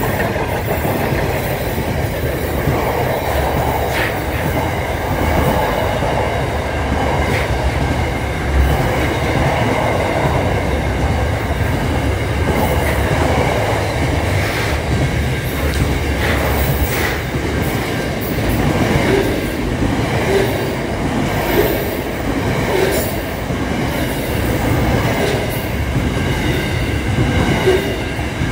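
An intermodal freight train's container wagons roll past close by: a steady rumble of steel wheels on the rails, with scattered clanks and a high, steady squeal above it.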